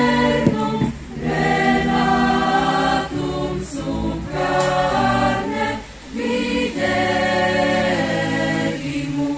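Mixed choir singing a Christmas carol through microphones, in sustained chords with short breaks between phrases about a second, three seconds and six seconds in.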